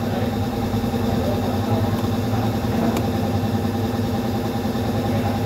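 Engine idling steadily, with one sharp click about three seconds in.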